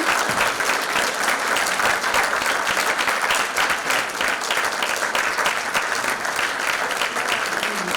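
Audience applauding: steady, dense clapping from a large crowd in a hall.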